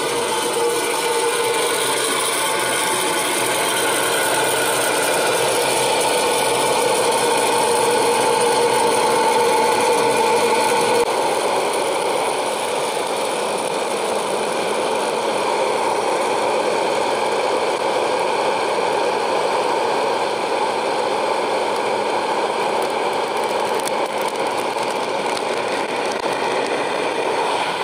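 PopLite hot-air popcorn popper running: a steady fan-motor drone, with kernels rattling and popping in the chamber as they are blown about.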